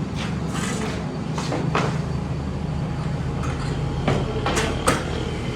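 Workshop machinery hums steadily while wooden sheets and cut pieces are handled, giving scattered sharp knocks, several of them close together near the end.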